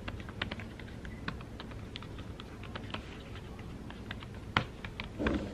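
Typing on a tablet's slim keyboard cover: quick, irregular key taps, with one sharper tap a little after four and a half seconds in.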